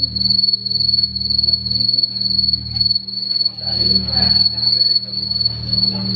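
Crickets trilling steadily at one unchanging high pitch, over a low steady hum.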